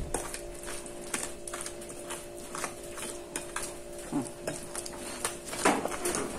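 Wooden pestle grinding tomato and chili sambal terasi against a ceramic plate: repeated scraping, knocking strokes, roughly two to three a second, over a steady low hum.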